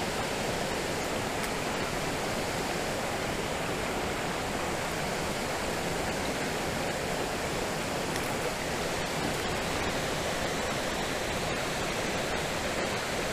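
Shallow creek water running steadily over rocks, with a few faint clicks in the later part.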